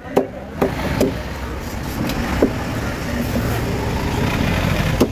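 Heavy cleaver chopping through a large trevally on a wooden table: about half a dozen sharp chops, most of them in the first two and a half seconds, over the steady low rumble of a vehicle engine.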